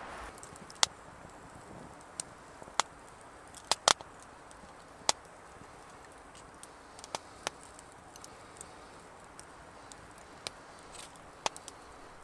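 Campfire crackling: sharp, irregular pops and snaps from the burning wood over a quiet background, the loudest few bunched around four seconds in.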